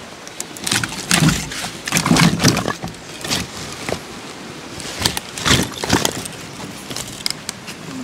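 Rustling with scattered clicks and knocks, in irregular bursts, from camping gear being picked up and carried by hand.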